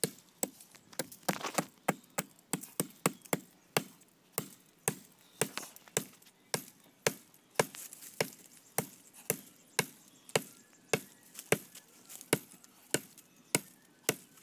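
Axe chopping into the base of a small tree trunk: sharp wooden strikes at a steady pace of about two a second.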